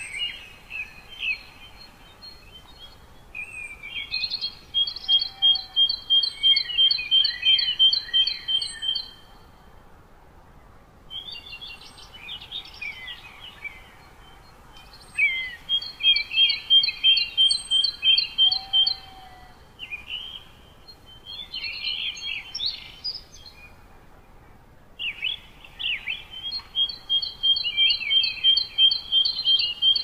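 Songbird song in repeated bouts: quick twittering phrases, three times running into a long even series of clear repeated notes lasting several seconds, with short pauses between songs, over a faint steady background hiss.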